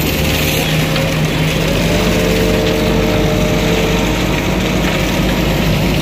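Engine of a self-loading concrete mixer running steadily as it discharges concrete down its chute; a steady higher hum joins about two seconds in.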